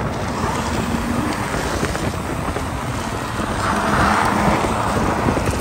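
BMW E46 sedan sliding sideways past on a snowy road: a steady wash of engine and tyre noise that grows loudest about four seconds in as the car goes by.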